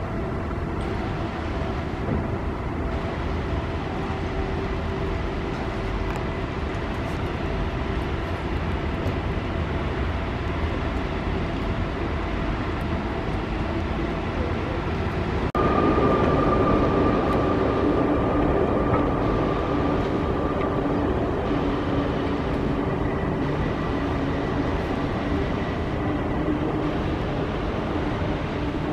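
A river tour boat's engine running with a steady drone. A little past halfway it suddenly gets louder and its tone changes.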